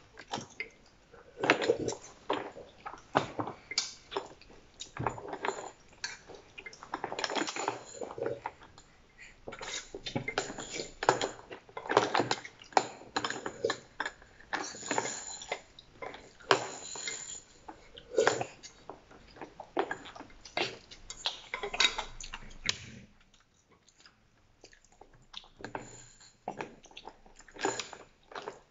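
A baby chewing and sucking on a plastic teething toy, with irregular clacks and rattles as the toy's rings knock against the plastic high-chair tray. There is a short lull about 23 seconds in.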